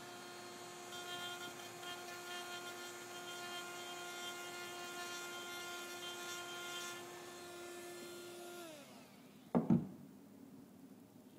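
A small high-speed rotary tool whines steadily while grinding material off the back of a fan blade to correct its imbalance. It is switched off near the end and winds down, and a single thump follows.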